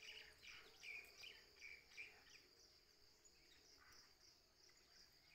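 Faint, steady, high-pitched chirring of insects with a regular pulse, and a few short bird chirps over the first two seconds or so.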